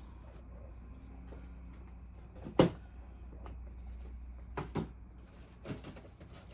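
Model kit box being handled, with one sharp knock about two and a half seconds in and a few softer knocks later, over a low steady hum.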